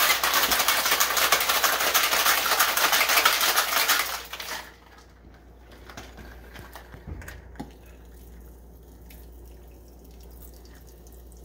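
Ice rattling hard inside a metal cocktail shaker, shaken vigorously for about four and a half seconds and then stopping. A couple of sharp clicks follow as the shaker is handled and opened, and near the end the chilled drink pours quietly into a glass over ice.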